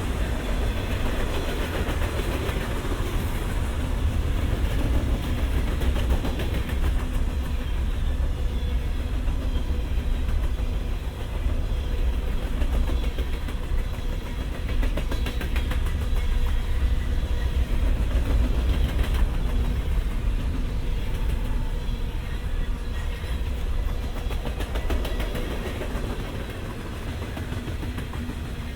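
Freight train passing: a steady, loud low rumble of the wagons rolling on the rails, with a rapid run of clicks from the wheels, easing off slightly near the end.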